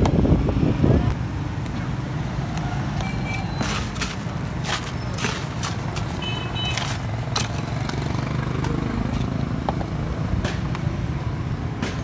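Steady low rumble of street traffic with scattered sharp clinks and knocks as crushed ice is scooped from a cooler box into plastic cups.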